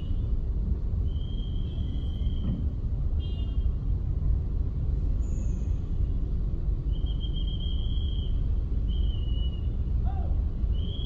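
Steady low rumble of a car driving in slow traffic, with four short high-pitched tones, one near the start and three in the second half.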